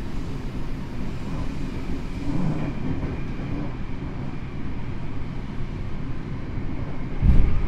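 Tokyo Metro 7000 series subway train heard from inside the car while running: a steady rumble of wheels on rail, with a loud low thump near the end.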